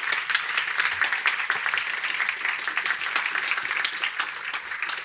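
Audience applauding: many hands clapping at once, close together and steady.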